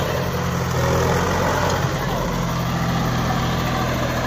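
Swaraj 744 FE tractor's three-cylinder diesel engine running steadily as the tractor moves.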